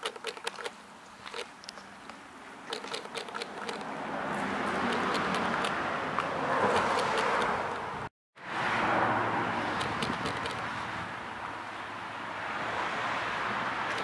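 Road traffic noise swelling and easing as vehicles pass, with a few light ticks in the first seconds. The sound cuts out completely for a moment about eight seconds in.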